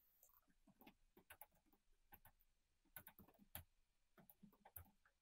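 Faint keystrokes on a computer keyboard: scattered, irregular clicks coming in short runs.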